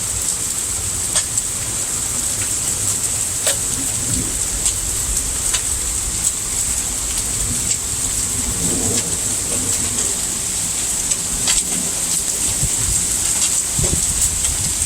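Heavy thunderstorm rain, a steady hiss with scattered sharp taps of drops striking close by and a low rumble underneath.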